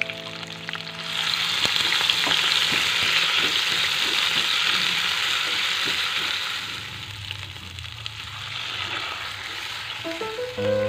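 Ground spice paste with lemongrass and leaves sizzling in hot oil in a wok while a spatula stirs and scrapes it; the sizzling dies down in the last few seconds.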